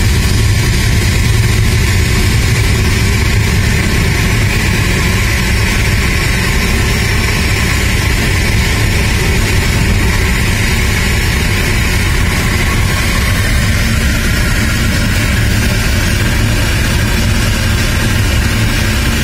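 Aircraft pushback tug's engine running steadily under load while pushing back a Boeing 737-800 on a towbar, heard from inside the tug's cab. It is a deep, even engine sound with a constant high hiss over it.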